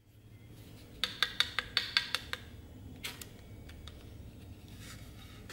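Light sharp taps and clicks on the steel axe head as it is handled: a quick run of about eight over a second and a half, a few scattered ones after, and a heavier knock near the end.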